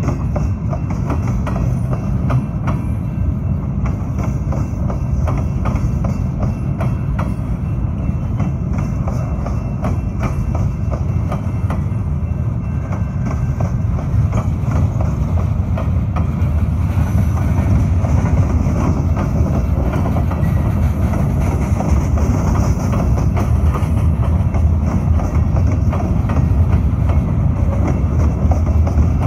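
Freight cars rolling past on the rails: a steady low rumble with the continuous clack and tick of steel wheels over the track, getting a little louder partway through.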